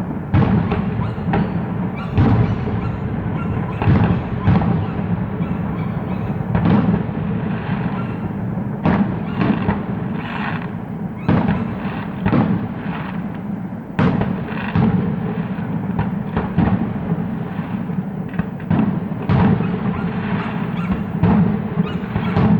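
Fireworks bursting in irregular succession, a sharp bang every second or so, over a steady low background sound.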